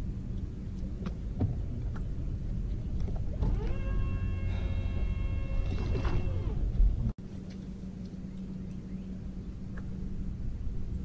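Bass boat's electric trolling motor whining for about three seconds a few seconds in: its pitch rises as it speeds up, holds steady, then falls as it slows. Beneath it is a steady low rumble, which breaks off briefly near the end.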